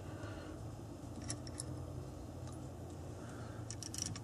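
Faint scattered clicks of small screws and washers being handled and set into a metal butt-pad plate, a few light ticks with a cluster near the end, over a low steady hum.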